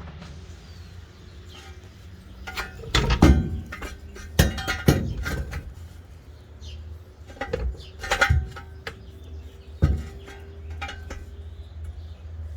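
Metal tools and parts clanking and knocking: a handful of sharp metallic clinks and knocks in a few clusters, over a steady low hum.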